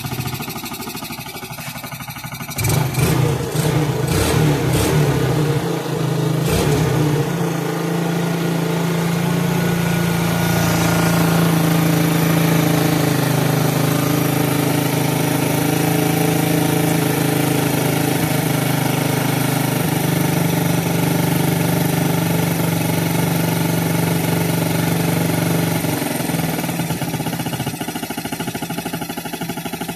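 Yamaha Vega ZR 115's four-stroke single-cylinder engine running with its carburetor's vacuum-leak damage patched with steel epoxy. It revs unevenly about three seconds in, then runs steadily, and settles down a little near the end.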